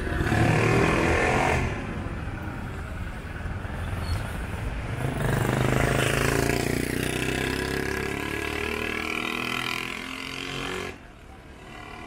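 Street traffic: motor vehicle engines passing close, with engine pitch gliding up and down as they go by. The noise drops suddenly near the end.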